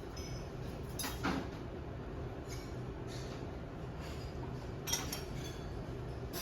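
Steady low background rumble with a few light clicks and clinks, one about a second in and another about five seconds in.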